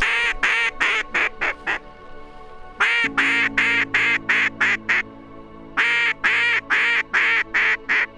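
Duck call blown in mallard hen quacks: three runs of about seven or eight quacks each, in a steady cadence, with the first notes of each run a little longer. A low musical drone runs underneath.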